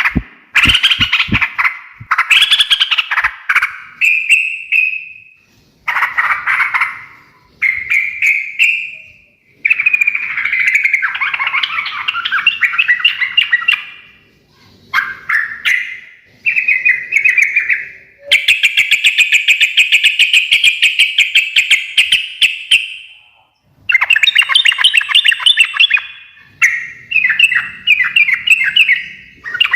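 Trucukan (yellow-vented bulbul) singing in repeated bursts of rapid chattering notes, each burst a second to several seconds long with short pauses between. The longest unbroken chatter comes about two-thirds of the way through.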